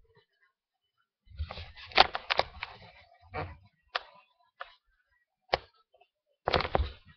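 An irregular series of sharp clicks and knocks, some with a dull thump underneath, bunched in a quick cluster and then coming singly every second or so.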